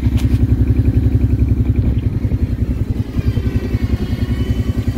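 ATV engine running with a steady, evenly pulsing chug, and a short click just after the start. A faint high whine comes in about three seconds in.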